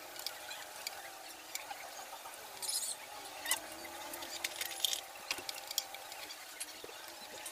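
Light, scattered metallic clicks and taps of hex keys and hand tools being handled, with a short rustle about three seconds in.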